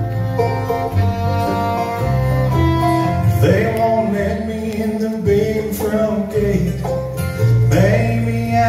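Live bluegrass band of fiddle, banjo, acoustic guitar, mandolin and upright bass playing an instrumental break between sung verses, with sliding, sustained melody notes over a steady bass line.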